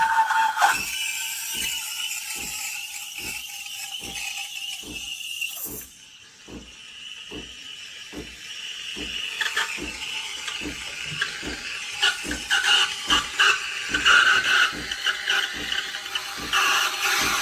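Compact espresso machine's steam wand hissing, with a regular low pulse about every two-thirds of a second from the machine. The hiss drops away about six seconds in and builds back up from about nine seconds.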